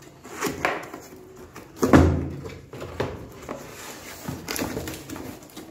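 Cardboard box being handled and opened by hand, with scrapes and clicks of the cardboard and packaging and a dull thump about two seconds in.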